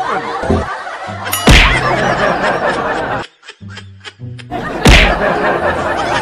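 Background music mixed with laughter, broken by two loud, sudden thuds, about a second and a half in and again near five seconds in, with a brief drop-out between them.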